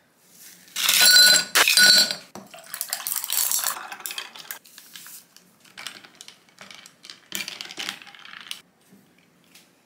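Ice cubes clinking loudly into a tall glass, then water poured over the ice, then lighter clinks and clicks as the iced drink is stirred.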